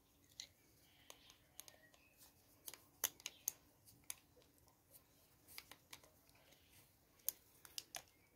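Faint, irregular small clicks and taps of a plastic electrical plug being handled and put together by hand, a dozen or so sharp ticks spread unevenly.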